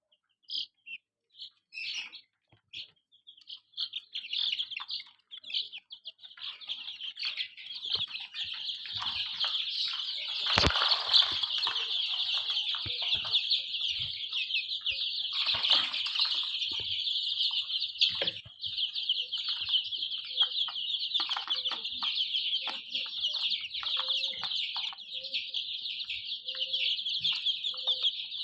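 A brood of desi chicken chicks peeping together in a dense, high-pitched chorus, sparse at first, then constant. About a third of the way in comes a sharp knock with a burst of rustling, and another rustle follows a few seconds later.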